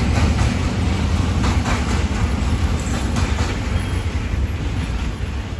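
Container wagons of a departing freight train rolling past on the rails: a steady low rumble with a few light wheel clacks over the rail joints, easing slightly as the end of the train goes by.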